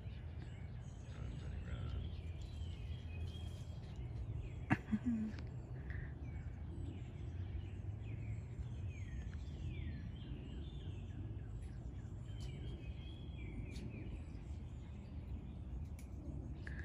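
Wild birds chirping repeatedly in short falling calls over a steady low outdoor rumble, with a single sharp click about five seconds in.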